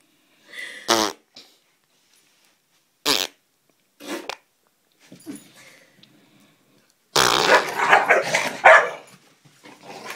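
A dog's short, rippling fart about a second in, then a few short sounds. From about seven seconds in come nearly two seconds of loud growling and barking as the dog spins after its tail.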